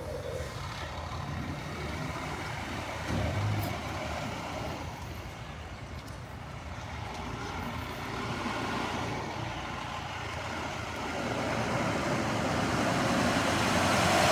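Engines of emergency vehicles, fire trucks and an ambulance van, running steadily, with a short low thump about three seconds in and one vehicle growing louder near the end as it comes close.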